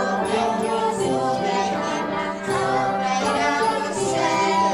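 Children and parents singing a song together in chorus, with musical accompaniment.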